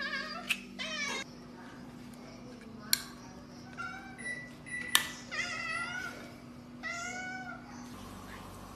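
Cats meowing several times in short calls. Three sharp metallic clicks from the ring-pull of a tin can of cat food being lifted are the loudest sounds.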